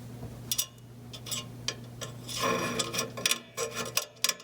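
Light clicks and scraping as a stripped thermostat wire is worked into a rust-clogged pressure-switch port on a furnace inducer housing. A steady low hum runs underneath and stops about three seconds in.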